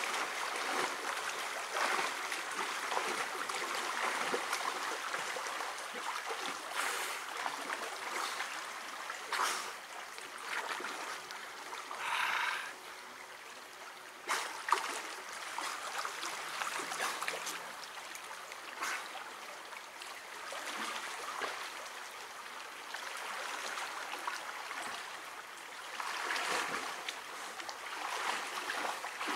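A fast-flowing river running high, rushing steadily over shallow rapids, with a few brief louder splashes.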